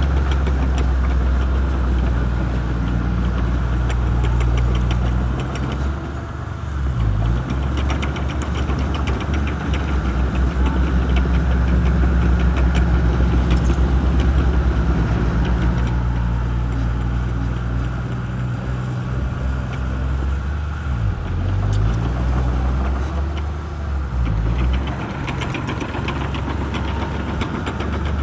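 Shantui bulldozer's diesel engine running under load, its low drone easing and swelling as it works, with stretches of rapid clattering.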